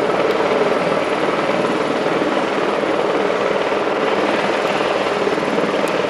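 Helicopter's main rotor and engine running steadily, a constant fast chopping beat.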